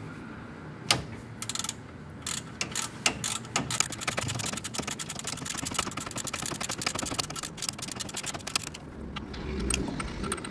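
Hand ratchet with a T55 Torx socket clicking as it backs out a brake caliper mounting bolt. There is a sharp single click about a second in, then scattered clicks. The clicking runs fast and dense from about four to nine seconds, then thins out near the end.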